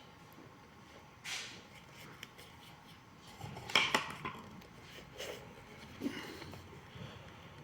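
Hand work on a shoe-repair bench: a short scrape about a second in, a quick cluster of sharp clicks and knocks about four seconds in (the loudest), and another light knock near six seconds, as tools and the shoe are handled and set down.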